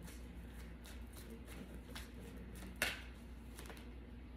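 Tarot cards being shuffled by hand to draw a card: soft, repeated flicks and riffles of the deck, with one louder sharp click about three seconds in.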